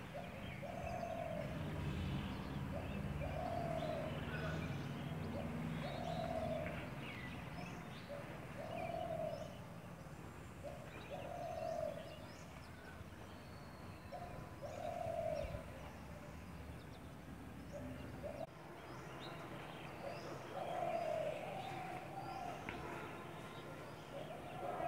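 Outdoor birdsong: one bird repeats a short cooing call every two to three seconds, over faint higher chirps from smaller birds. A low steady rumble runs underneath for the first part and drops away about two-thirds of the way through.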